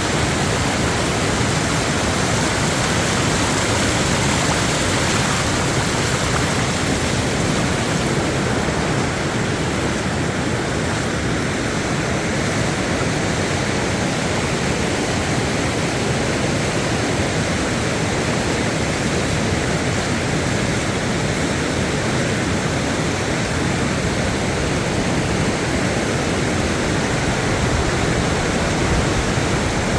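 Steady, even rush of fast-moving water, with no change for the whole stretch.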